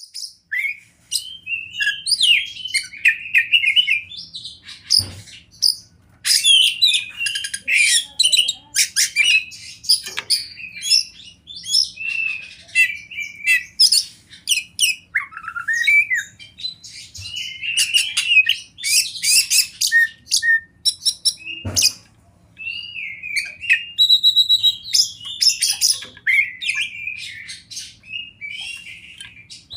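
Oriental magpie-robin (kacer) in full song: a long, varied stream of whistles, fast trills and harsh, scratchy notes, broken by short pauses.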